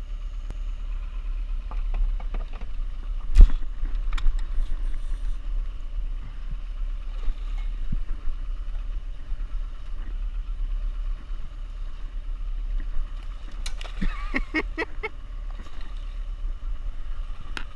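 A motor running steadily on a boat, a constant low hum. There is one sharp knock about three and a half seconds in, and a run of clattering knocks around fourteen seconds in.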